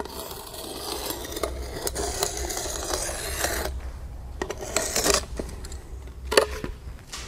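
A marker scraping over rough clay pavers as it traces around the edge of a plywood template: a steady scratching for the first three and a half seconds, then a few short scrapes and clicks.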